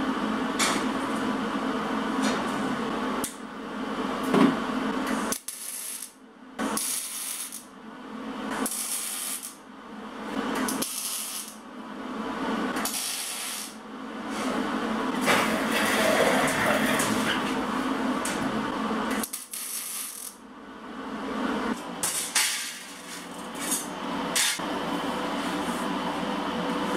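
MIG welding on thin steel sheet: the welding arc runs in repeated bursts of one to several seconds, with short breaks between them.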